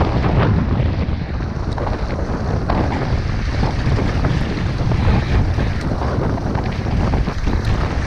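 Strong gusty wind buffeting the microphone with a heavy low rumble, over choppy water splashing around a kayak and its paddle.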